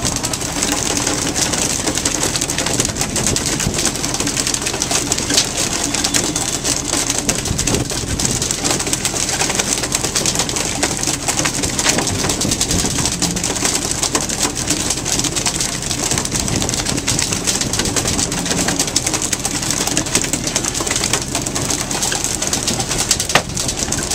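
Steady noise of a fishing boat under way at sea: engine hum beneath a rush of wind and water, with constant small knocks and clatter.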